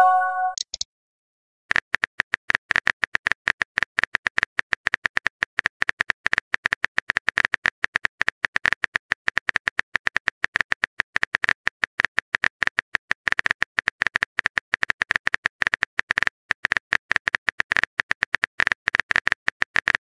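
A short chime-like message tone, then from about two seconds in a fast, irregular patter of phone-keyboard typing clicks that continues without a break.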